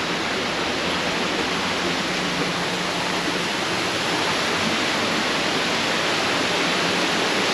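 A steady, even rushing noise without breaks, with a faint low hum beneath it.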